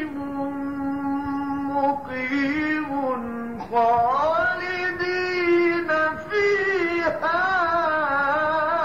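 Mujawwad Quran recitation by a solo male qari: one voice drawing out long, ornamented melodic phrases. There are short pauses between phrases, and a new, louder phrase starts a little after three and a half seconds in.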